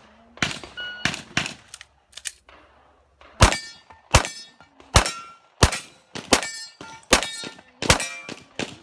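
Competition pistol shots: a string of loud shots about one every three-quarters of a second from about three and a half seconds in, many followed by the ring of steel targets being hit. Before that, fainter shots and a short electronic shot-timer beep about a second in.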